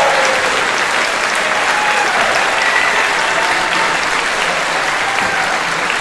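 Concert audience applauding steadily at the end of a choral song, with a few cheering voices.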